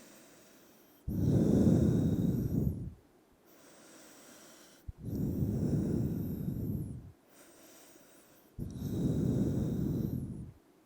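A person breathing slowly and deeply while holding a yoga pose: three long breaths of about two seconds each, with short quiet pauses between them.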